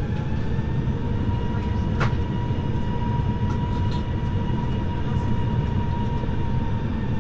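Inside the cabin of an Airbus A321 taxiing: a steady low rumble from the wheels rolling on the taxiway and the IAE V2500 engines at low thrust, with a faint high engine whine that bends slightly and eases near the end. A single sharp click about two seconds in.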